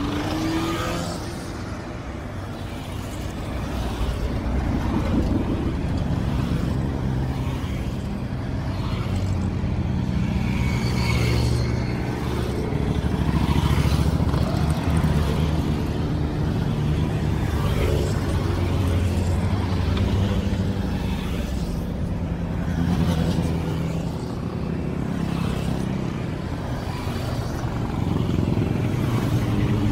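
Motorcycles riding past one after another in a steady stream, the engine sound swelling and fading as each bike goes by, with car traffic mixed in.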